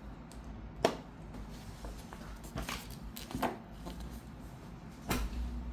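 Handling noise: four scattered short clicks and knocks over a faint low hum.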